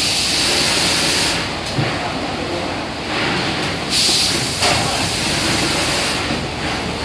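Compressed air hissing from the case packer's pneumatic vacuum gripper in two long spells, the first stopping about a second and a half in and the second from about four to six seconds in. Underneath is the steady running noise of the packing line's conveyors and machinery.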